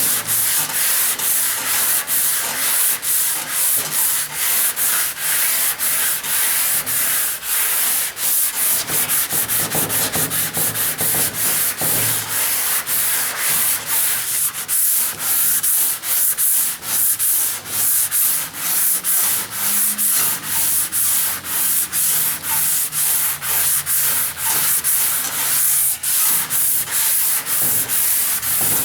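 Sandpaper on a hand-held foam sanding block scrubbing back and forth over primer on a 1949 Chevy truck's steel hood, in quick, even strokes a few times a second.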